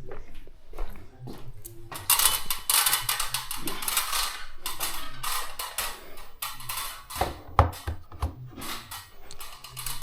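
Rustling and a rapid run of small clicks and clatters as things are handled, with a few heavier knocks about three quarters of the way through.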